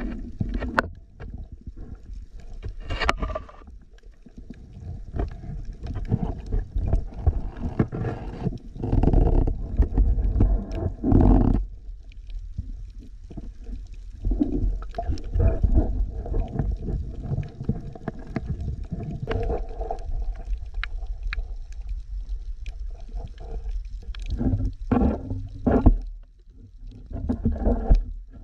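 Muffled underwater sound picked up by a submerged camera: low rumbling water movement that swells and fades, with scattered sharp clicks and knocks.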